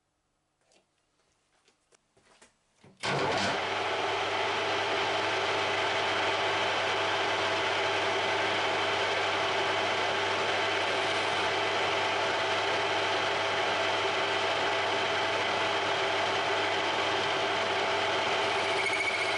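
A small metal lathe is switched on after a few faint handling clicks, about three seconds in, and runs steadily with a motor and gear whine. A higher tone joins near the end.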